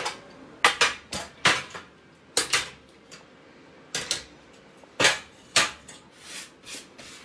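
Locking C-clamps being released and set down on a steel welding table, with the tack-welded square-tube frame handled: about a dozen sharp, irregular metal clanks and clicks.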